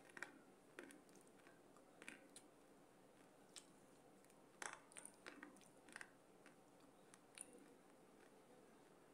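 Faint chewing of baked clay pot pieces, with scattered sharp crunches and clicks, the loudest about four and a half seconds in.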